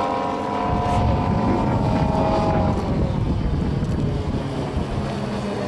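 Radio-controlled model airplane flying overhead, its motor and propeller droning at a steady high pitch that sinks slightly and fades out about three seconds in. Wind rumbles on the microphone throughout.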